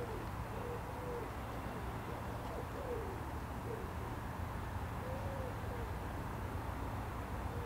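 A pigeon cooing, a run of short soft notes that rise and fall, repeated every second or so, over a low steady rumble.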